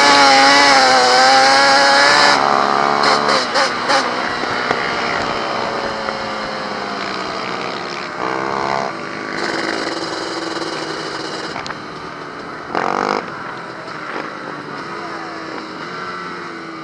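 Racing quad's engine at high revs under the rider, its pitch wavering, then the throttle is shut about two seconds in with a few sharp cracks, and the engine runs on at lower revs. It picks up again briefly twice, near eight and thirteen seconds in.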